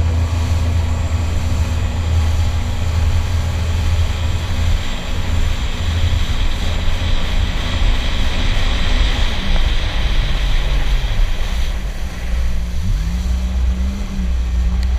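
Jet ski engine running at speed with rushing water spray and wind noise. About two-thirds of the way through, the engine note drops as the throttle eases off, then rises again.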